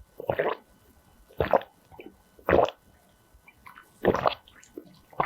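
Close-miked wet eating sounds: four or five short separate mouthfuls of slurping and chewing, about a second apart.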